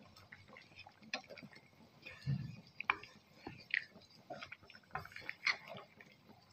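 Wooden spatula stirring a thick curry in a non-stick pan: irregular wet squelches and light knocks, with one low thump about two seconds in.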